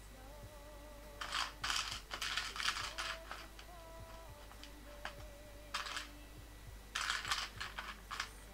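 Plastic LEGO bricks clicking and rattling as hands handle and sort through pieces, in clusters of rapid clicks: a long run about a second in, a brief one in the middle and another near the end.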